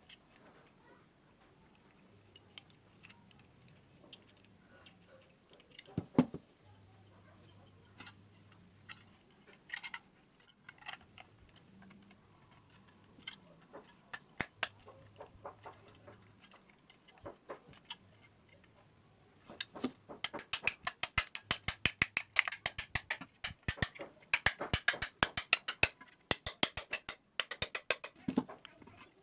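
Combination pliers working the thin sheet metal of a galvanized light-steel hollow section: scattered metallic clicks and scrapes, with one louder knock about six seconds in, then from about twenty seconds in a quick run of sharp metallic taps, several a second.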